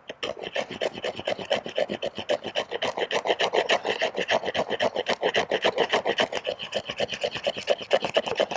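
Schrade SCHF42's 90-degree 1095 steel spine scraping down a split wooden stick: a fast, even rasp of about six strokes a second that stops near the end. The sharp spine scrapes really well.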